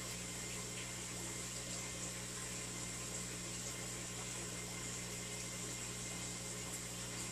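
Aquarium pump running steadily, a level low hum over a faint water hiss.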